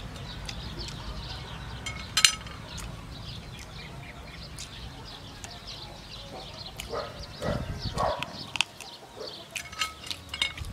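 Close-up eating sounds: chewing and mouth noises, with short clicks of chopsticks against the plate, a sharp one about two seconds in. Birds chirp in the background.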